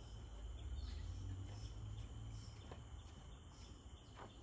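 Steady high-pitched chorus of tropical forest insects, several tones droning without a break, over a low rumble on the microphone and a few faint ticks.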